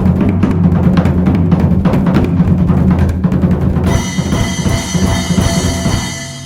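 Drum-heavy music with a rapid pattern of drum hits over a steady bass line. About four seconds in it lands on a bright ringing final hit that sustains and then fades out near the end.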